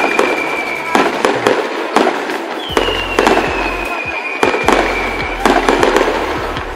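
Fireworks going off close by in quick succession: sharp bangs and crackling, one or two cracks a second.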